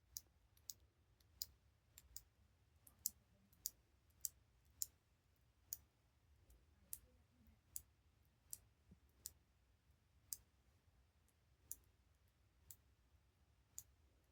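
Dials of a four-digit combination padlock being turned by hand one step at a time, a sharp click at each detent. There are about twenty clicks, unevenly spaced at one to two a second, five steps on each dial.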